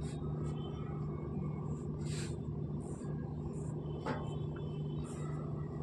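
Steady low hum and rumble of background noise, with a brief faint hiss about two seconds in and a short click about four seconds in.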